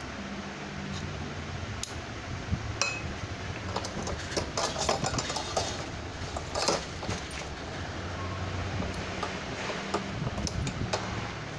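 Metal and plastic tricycle parts clicking and clinking as they are handled and a black tube is pushed into the frame's tube, the clicks coming thickest in the middle; a steady low hum runs underneath.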